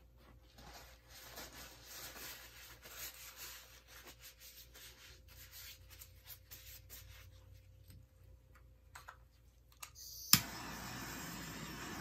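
Faint rubbing and handling noises, then a little after ten seconds the sharp click of a handheld torch being lit. The torch flame's steady hiss follows.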